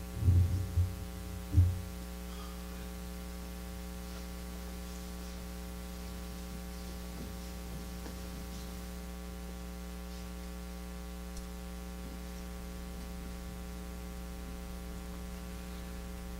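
Steady electrical mains hum with a buzzy stack of evenly spaced overtones. A few low thumps come in the first couple of seconds.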